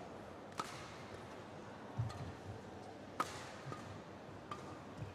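Badminton racket strikes on a shuttlecock during a rally: three sharp, ringing hits about one to two and a half seconds apart, the middle one the loudest, with dull thumps of players' feet landing on the court between them, in a quiet hall.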